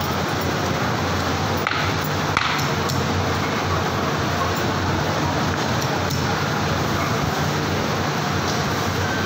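Steady hum and noise of factory machinery, with a couple of light metallic clinks about two seconds in from metal belt buckles being handled.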